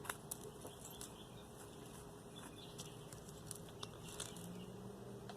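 Faint scattered clicks and light scratching as small bits of debris are picked out from between the copper windings of a motor yoke by hand.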